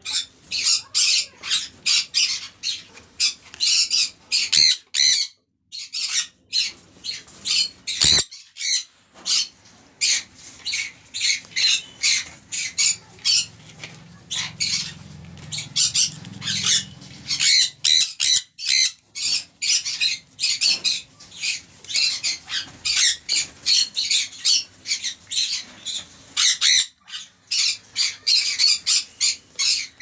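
Caged conures, among them sun conures, squawking with harsh shrill screeches, several a second and nearly without pause.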